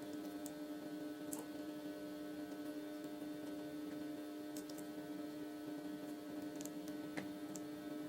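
Steady electrical hum at one constant pitch, with a few faint light clicks.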